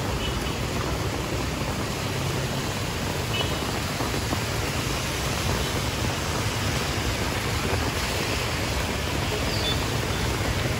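Steady rushing outdoor noise with a heavy low rumble and no distinct events.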